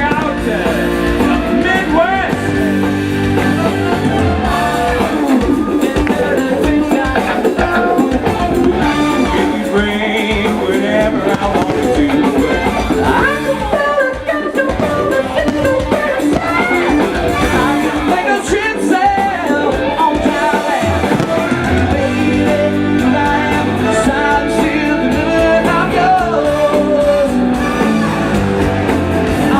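Live rock band playing a song, with a lead singer, guitar and a steady bass line.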